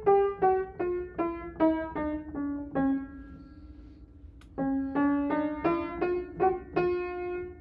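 Upright piano played one note at a time: a simple melody stepping down note by note, one note held for about a second and a half, then a few notes climbing back up to another held note.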